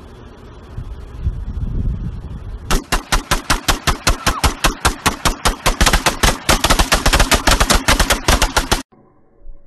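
Rifle fire: a long, fast string of shots at about seven a second, starting nearly three seconds in and cutting off abruptly near the end. A low rumbling noise comes before the shooting starts.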